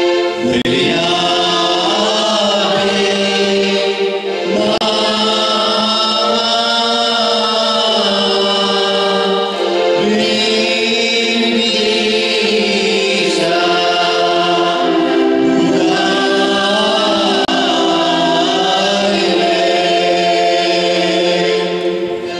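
Mixed choir of men and women singing a slow devotional hymn into microphones, in long held phrases with short breaks about four and ten seconds in.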